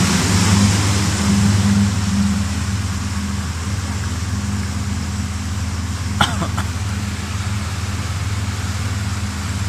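Tour boat's motor running at a steady drone under the hiss of water and wind. About six seconds in there is one short, sharp sound.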